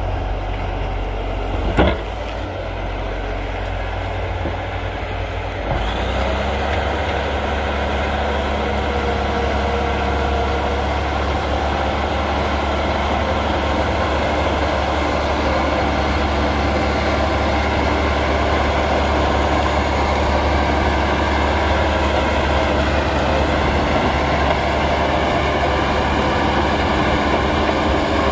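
Caterpillar D7F bulldozer's diesel engine running steadily under load as the dozer pushes brush with its blade. There is a sharp knock about two seconds in, and the engine sound gets louder and fuller about six seconds in.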